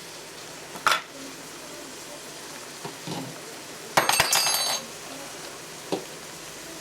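Metal utensil clinking against a metal cooking pot. There is a sharp knock about a second in, a quick run of ringing clinks around four seconds in, and one more knock near the end.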